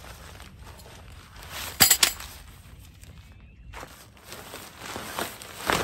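Tent fabric rustling as a tent is pulled out of its stuff sack and unrolled, with two sharp clicks close together about two seconds in.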